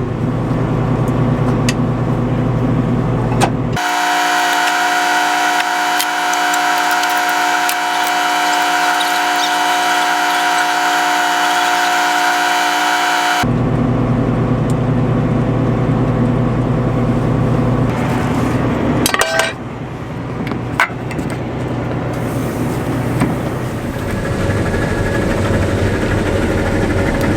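A combine's engine running with a steady low rumble. About four seconds in it switches abruptly to a different steady, higher-pitched hum of several tones with the rumble gone, and after about ten seconds the low rumble returns, with a couple of brief knocks later on.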